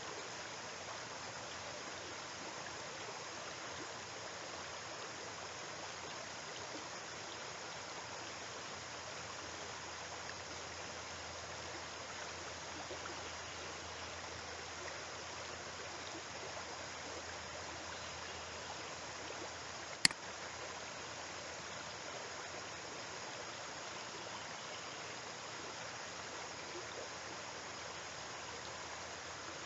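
Steady, even hiss of background noise with no other activity, broken once about twenty seconds in by a single sharp click.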